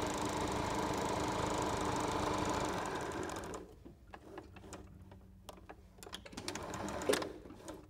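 Domestic electric sewing machine stitching a seam along the edge of layered fabric, running steadily and stopping about three and a half seconds in. A few light clicks and rustles follow.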